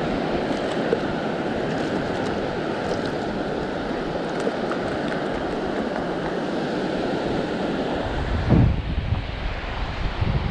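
Ocean surf breaking and washing on the beach, a steady rush of water. About eight seconds in it gives way to gusty wind buffeting the microphone.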